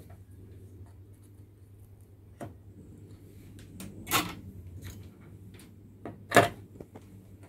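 A few short, sharp clicks and knocks of tools and parts being handled on a workbench while working on a TV motherboard with a soldering iron, the loudest about six seconds in, over a steady low hum.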